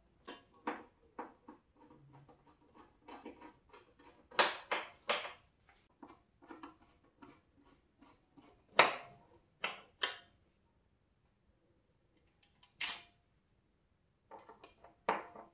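Irregular clicks and knocks of plastic and metal as screws are set and turned in with a hand screwdriver to fix a plastic stand to the back of a TV. A few knocks are much louder than the rest, and there is a quiet spell of about two seconds about two-thirds of the way through.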